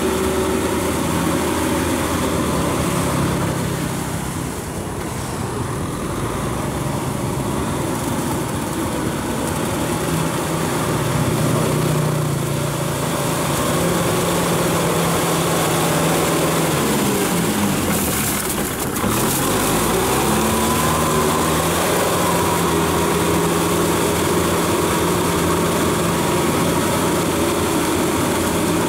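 Kubota 6040 tractor's diesel engine running steadily under load while pulling a rotary tiller through wet paddy mud. About two-thirds of the way through, the engine's pitch sags briefly and then recovers.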